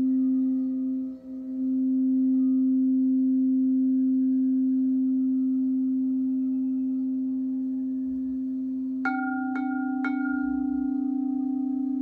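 Frosted crystal singing bowls: one bowl sings a steady low tone with a few faint overtones, dipping briefly about a second in. About nine seconds in, a bowl is struck three times, half a second apart, and its higher tones ring on over the hum.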